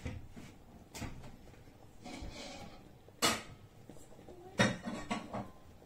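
Kitchen clatter: several sharp knocks and clinks of cookware and utensils, spaced out, the loudest about three seconds in.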